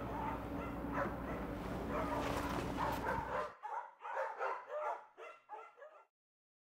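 A quick run of short, pitched animal calls over a steady low hum. The hum cuts off about three and a half seconds in, and the calls carry on alone, fading away within two more seconds.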